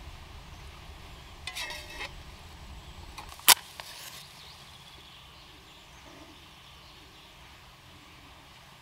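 Metal camp cookware being handled: a few ringing metal clinks about a second and a half in, then one sharp knock or click about three and a half seconds in, the loudest sound. Faint steady outdoor background between them.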